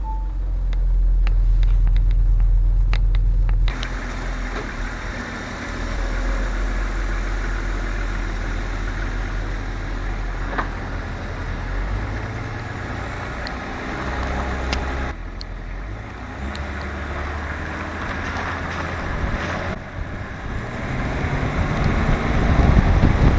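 Range Rover P38 engine idling just after a hard hot start, a steady low rumble. After an abrupt cut, steady tyre and road noise on a wet road with wind, picked up by a camera mounted outside beside the front wheel while the car drives.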